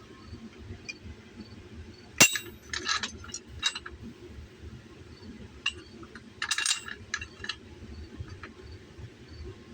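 Steel parts of a blacksmith's guillotine tool clinking against each other: one sharp metallic strike about two seconds in, then scattered light clinks and rattles as the dies are handled.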